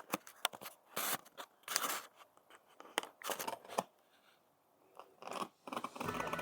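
Irregular crinkling and scraping of a parcel's packaging being handled, in short bursts with a brief pause about four seconds in. Music starts near the end.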